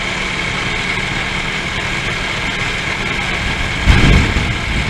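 Vehicle engine idling steadily, with a louder low rumble starting about four seconds in.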